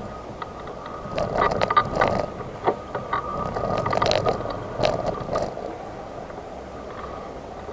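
Electric wheelchair on the move: a steady motor whine with irregular clicks and scrapes from the wheels rolling over rough pavement, busiest in the first half.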